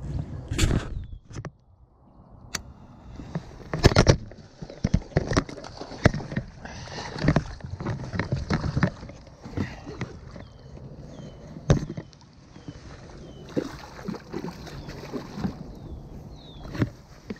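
A hooked largemouth bass splashing and thrashing at the surface beside a small boat as it is fought in, with water sloshing and several sharp knocks, the loudest about four seconds in.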